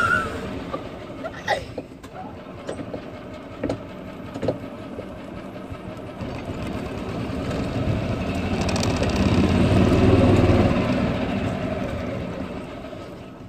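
Golf cart driving, its running noise swelling for several seconds midway and then falling away, with a few knocks and rattles in the first five seconds.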